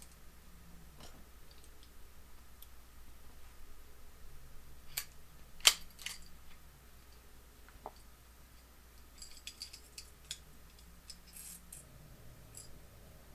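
Steel parts of a 1911 pistol clicking and clinking as it is stripped by hand, slide and recoil spring coming off the frame. A single sharp click about five and a half seconds in is the loudest, and a run of small quick clicks follows later.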